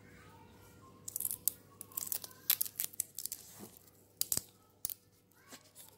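Wet pandan leaves being handled and lifted out of a steel pot of water, giving a quick run of crisp snaps and crackles that fade out near the end.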